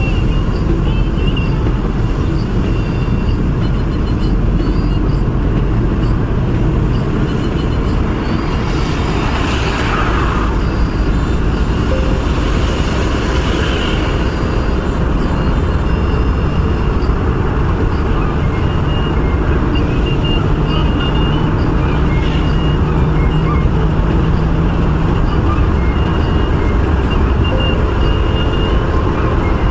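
Steady road and engine noise of a car driving on a highway, with a brief swell of louder noise about ten seconds in.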